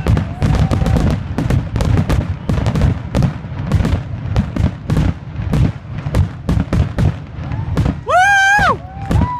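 Fireworks finale barrage: many sharp bangs and crackles in quick, irregular succession, several a second. A loud, high-pitched whoop rises and is held briefly about eight seconds in.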